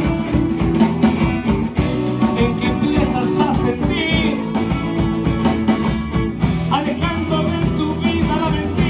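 Live rock band playing: a Yamaha drum kit, electric bass and amplified acoustic guitar, with a man singing lead.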